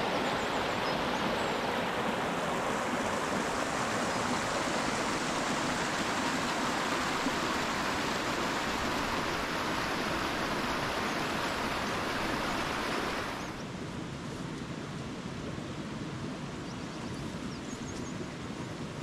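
Fast mountain burn rushing and splashing over boulders in small cascades: a loud, steady rush of water. About thirteen seconds in it drops to a quieter, more distant rush.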